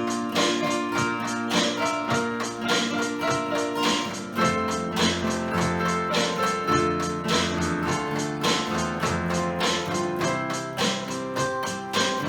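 A band playing an instrumental passage, led by strummed guitar with keyboard, at a steady beat.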